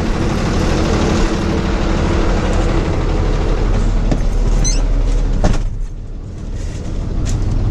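Rollback tow truck's engine idling steadily close by. About five and a half seconds in a door slams, and for a moment the engine sounds quieter and duller.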